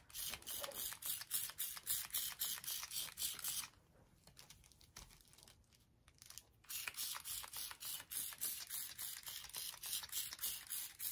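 Hand-pumped trigger spray bottle squirting in quick repeated pumps, several a second, each a short hiss of mist onto fabric. The spraying stops for about three seconds midway, then starts again.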